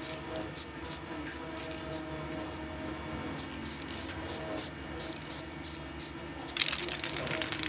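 Aerosol spray-paint can being sprayed in a series of short puffs, about three a second, with a longer, louder spray near the end.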